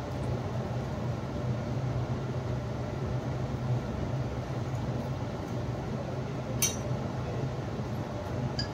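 Steady low hum under a background hiss, with a sharp light clink of kitchenware about two-thirds of the way in and another near the end.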